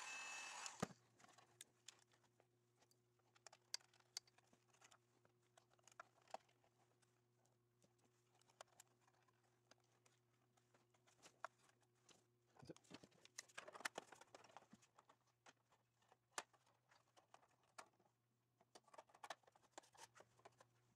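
Heat gun blowing, then switched off with a click about a second in. After that, very faint clicks and rustles of wires being handled and tucked into a cable channel, over a faint steady low hum.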